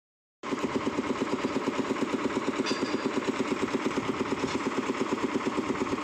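Concrete mixer's engine running steadily with a rapid, even chugging beat of about eight beats a second.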